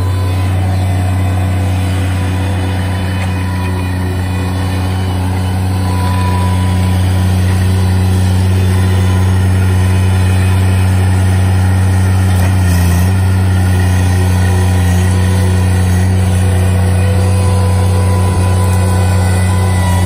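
Bobcat MT100 mini track loader's diesel engine running steadily under load while its grapple and lift arms raise a log, growing a little louder after about six seconds.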